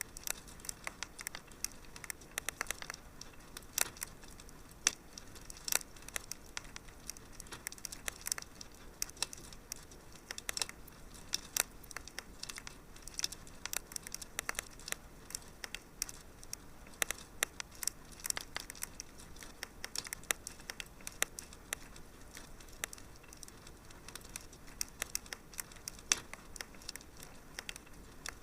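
Wood fire crackling in a fireplace: a steady soft hiss with irregular sharp pops and snaps, several a second.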